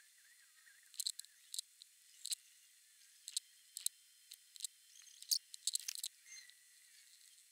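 Pencil scratching and tapping on paper in short, irregular strokes, with a cluster of sharper clicks about five to six seconds in.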